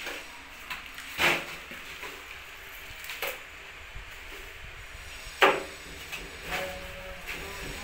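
A few separate sharp knocks and scrapes of a hand tool against old ceramic wall tile and mortar as the tiles are pried off, the loudest about five and a half seconds in.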